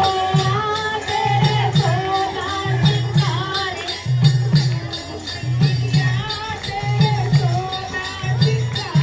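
Devotional group singing, a bhajan, with one voice leading in a wavering melody over a steady drum beat and jingling percussion.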